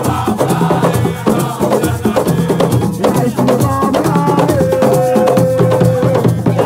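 Group singing a chant over hand drums and shaken rattles in a fast, steady rhythm. One voice holds a long note through the second half.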